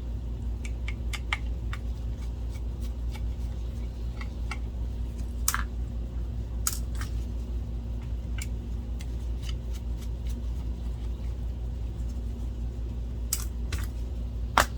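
Scattered small clicks and ticks of screws and small parts being handled while taking apart a projector's optical assembly, with a louder click about five seconds in and a sharper one near the end, over a steady low hum.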